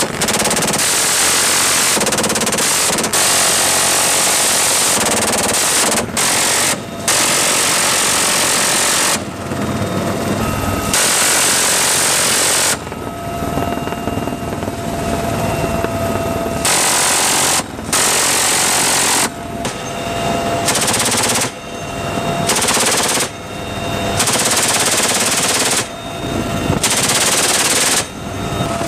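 Helicopter door-mounted M134 minigun firing repeated bursts, each a dense, continuous roar lasting one to three seconds that cuts off abruptly. Between bursts the helicopter's cabin noise is heard, with a steady whine.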